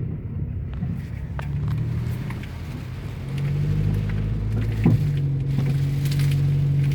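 Car engine running at low revs, getting louder a little over three seconds in, with a few scattered sharp taps of hail striking the car.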